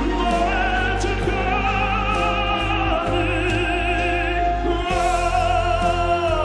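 A man singing a slow ballad in a full, operatic style, holding long notes with wide vibrato, over instrumental accompaniment.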